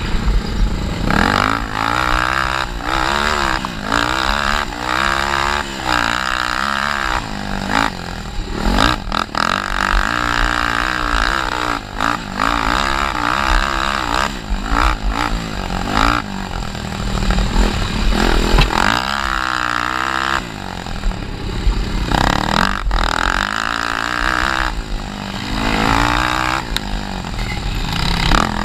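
Honda 300EX ATV's single-cylinder four-stroke engine, heard up close on board, racing along a dirt trail: the engine note rises and falls again and again with the throttle, with brief drops in between.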